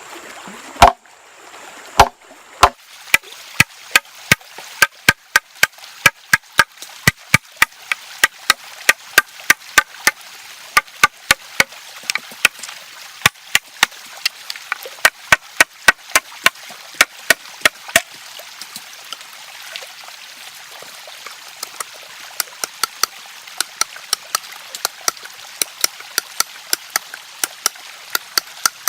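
A blade chopping wood in quick, even strokes, about three sharp chops a second. The chopping pauses for a few seconds around the middle, then starts again. A stream runs steadily underneath.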